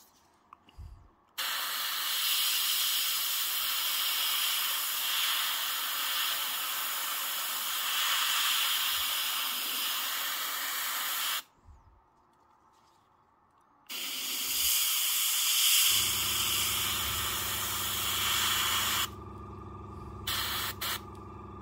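Fengda airbrush spraying paint in two long spells of steady hiss, the first about ten seconds long and the second about five, with a short pause between. About two-thirds of the way through, a steady low hum starts and keeps going, with a few light clicks near the end.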